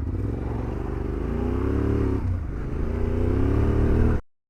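Dirt bike engine accelerating: the revs climb, dip briefly about two seconds in as if at a gear change, then climb again. The sound cuts off abruptly about four seconds in.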